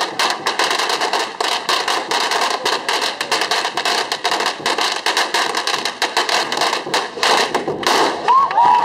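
Strings of firecrackers going off in a rapid, continuous crackle of sharp bangs, several a second.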